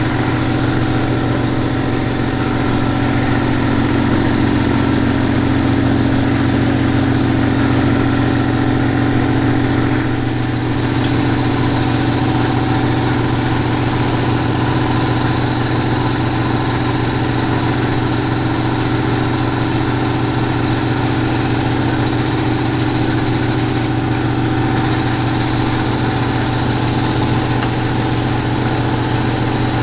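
An engine or motor running steadily at idle, with a thin high whine joining about ten seconds in.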